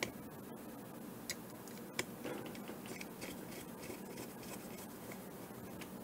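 Small screwdriver driving a tiny screw into a GPS unit's circuit board: faint scratchy ticking, with a few sharper clicks in the first two seconds.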